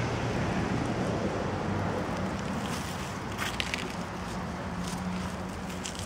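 Steady outdoor background noise with a faint low hum and some wind on the microphone, broken by a few short clicks a little past halfway and near the end.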